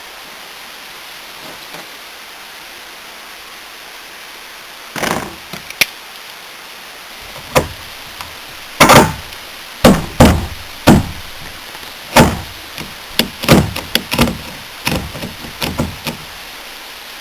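Marson HP2 Click Fast hand rivet tool being pumped to pull an aluminium pop rivet through a plastic strap eye: an irregular run of sharp clicks and clacks, starting about five seconds in, as the rivet is drawn tight toward the point where the mandrel breaks off.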